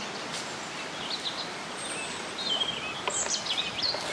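Several small birds chirping and singing in short phrases over a steady outdoor background hiss.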